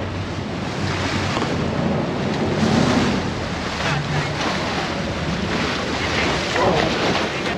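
Wind buffeting the microphone over the rush of white water churning along the hull of a sportfishing boat, with a steady low hum of the boat's engines beneath.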